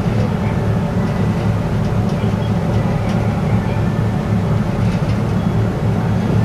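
Car ferry's diesel engines running under way: a steady low drone.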